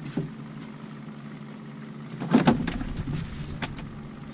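A boat motor running steadily with a low hum, and a short clatter of knocks about two and a half seconds in, with another knock a second later.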